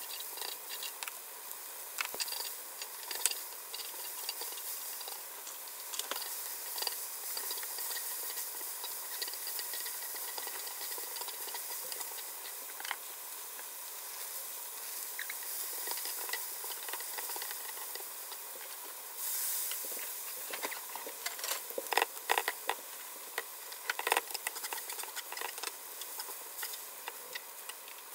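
Pork, then vegetables and noodles, sizzling on a hot griddle plate as they are stir-fried for yakisoba, a steady hiss with sharp taps and scrapes of cooking chopsticks on the plate. A brief louder rush of hiss comes about two-thirds of the way in, and the taps come thicker near the end.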